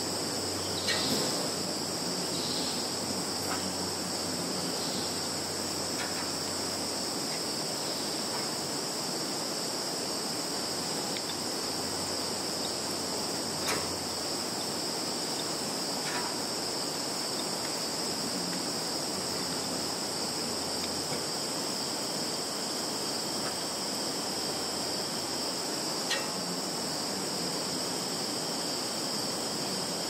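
Chorus of field insects such as crickets, chirring in a steady, unbroken high-pitched drone, with a few faint short clicks here and there.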